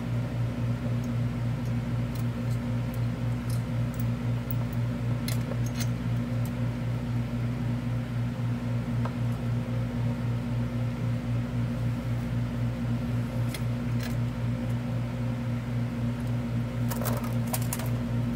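Steady low hum of a mechanical fan with a slight even pulse. A few light metallic clicks come and go, from the 14 mm bolts being started by hand.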